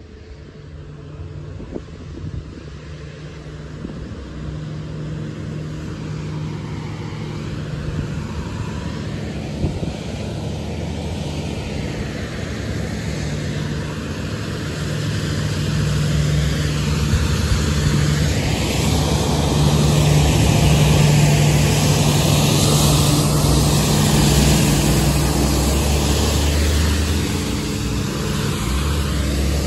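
Natural-gas street sweeper approaching and passing close, its engine running with a steady hum under the hiss of its sweeping gear. It grows steadily louder and is loudest about two-thirds of the way through.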